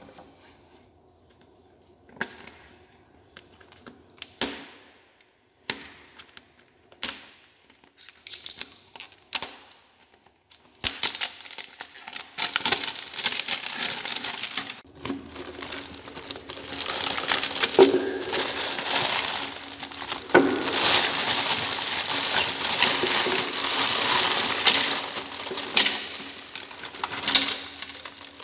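Hard plastic clicking and knocking in scattered single strokes as a large plastic surprise egg is handled. Then, about eleven seconds in, a long stretch of loud, continuous crinkling as the egg's printed plastic wrapper is peeled off and plastic packaging is handled.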